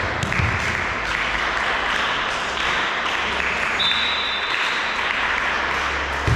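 Spectators applauding in a sports hall, a steady spell of clapping, with a short high tone about four seconds in.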